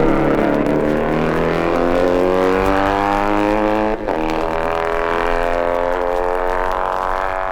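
Matchless parallel-twin racing motorcycle engine accelerating hard, its pitch rising, with a gear change about four seconds in before it climbs again. Heard from an old record.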